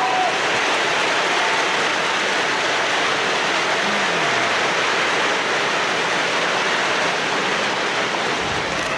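Large arena crowd applauding steadily: a dense, even wash of clapping with a few faint shouts in it.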